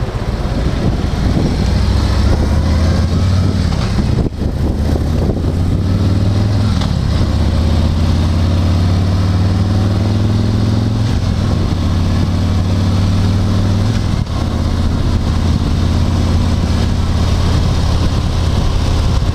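Road vehicle's engine and road noise heard from inside the vehicle as it pulls away and picks up speed. The engine note rises and falls a few times, with brief dips about four seconds in and again near fourteen seconds.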